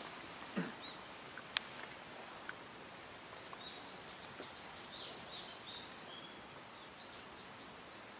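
A small bird chirping, a run of short arched chirps between about three and a half and seven and a half seconds in, over a faint steady outdoor hiss. A single sharp click about a second and a half in.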